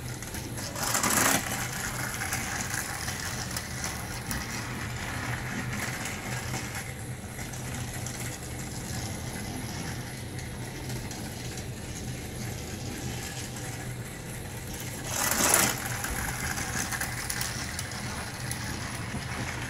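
Battery-powered Thomas & Friends TrackMaster toy train engines running on plastic track with a steady motor-and-gear whir. Two brief louder rattles, about a second in and again about three quarters of the way through.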